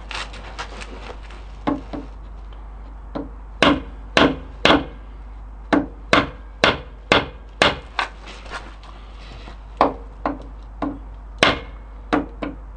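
Hammer blows on a handle held against a part, driving it onto a quad's gearbox shaft: sharp, separate knocks at an uneven pace, some in quick runs about half a second apart with pauses between.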